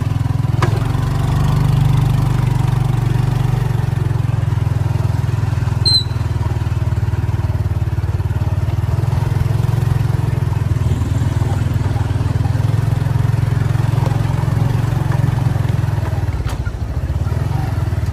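A vehicle running steadily: a continuous low engine drone with road noise over it, and one brief click about six seconds in.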